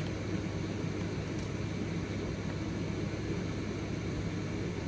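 Steady low room hum, like a fan or appliance running, with a faint click about a second and a half in.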